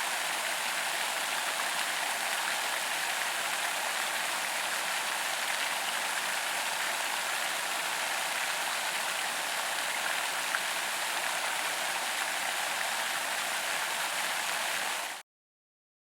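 Large pond fountain's spray falling back onto the pond, a steady hiss of splashing water weighted toward the high end. It cuts off suddenly near the end.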